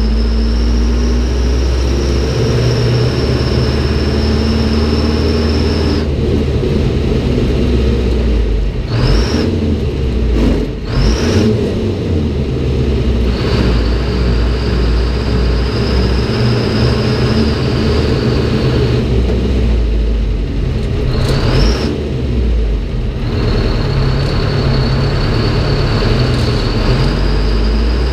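1971 American LaFrance Aero Chief fire truck's engine running as the truck drives, heard from inside the cab. A high whine rises and holds while the truck pulls, then drops away when it eases off. This happens several times, with a couple of short rising blips in between.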